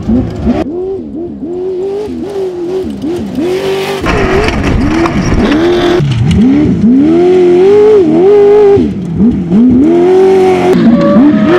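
Off-road race buggy's engine revving hard, its pitch climbing and dropping over and over with the throttle as it races over dirt. It gets louder after about four seconds and is loudest in the second half as the car comes close.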